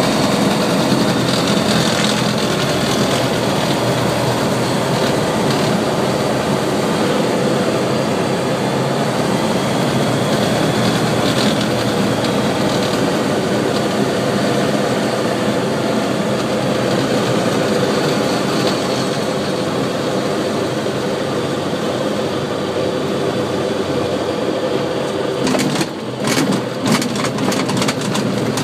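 Flight Design CT microlight's Rotax engine and propeller running steadily at approach power, heard from inside the cockpit with airflow noise. Near the end the power comes off and the wheels touch down on grass, with a series of bumps and rattles.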